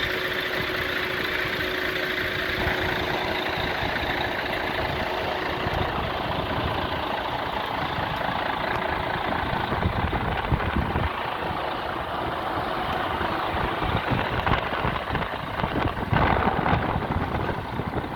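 Truck engine running steadily under road and wind noise, with a few louder low thumps from about halfway through, strongest near the end.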